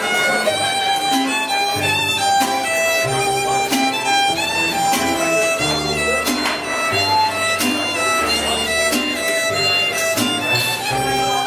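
Music: a violin playing a melody over a plucked bass line, with a steady beat.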